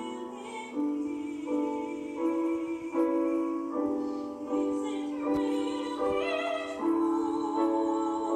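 Coloratura soprano singing a sequence of held notes, accompanied by a Steinway grand piano.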